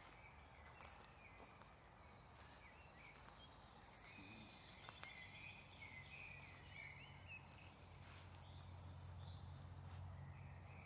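Faint outdoor ambience with scattered small bird chirps and calls. A low steady hum comes in about halfway through and grows a little louder.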